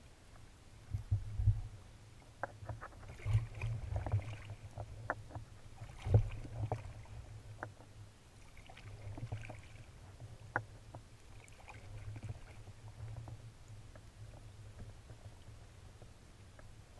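Kayak paddling: paddle blades dipping and splashing in the water every few seconds, with drips, small clicks and water lapping at the hull, and a few low knocks, the loudest about six seconds in.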